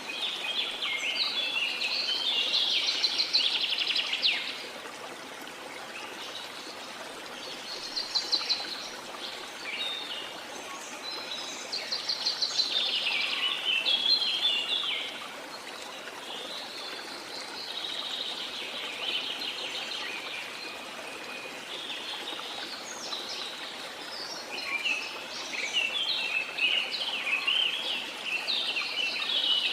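Songbirds singing in bouts of quick, high phrases a few seconds long, over the steady rush of a waterfall.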